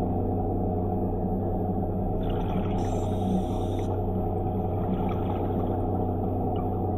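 DiveX Blacktip underwater scooter running steadily underwater, a constant low hum with several steady tones. About two seconds in, a hiss lasts for a second and a half.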